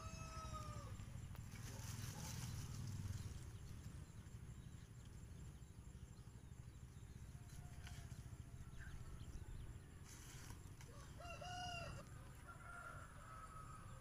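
A rooster crowing twice: once at the start and again about eleven seconds in, each a short rising-then-falling call, with a fainter call just after the second. A low background rumble runs underneath.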